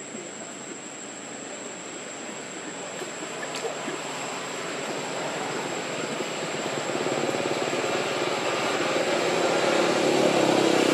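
Distant engine noise growing steadily louder, with a thin, steady high-pitched tone running under it.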